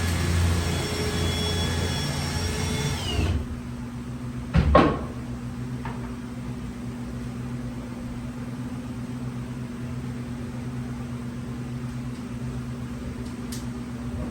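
A loud machine running with several steady tones, cutting off abruptly about three seconds in. A single loud knock or scrape comes about a second later, and a quieter steady hum with low tones follows.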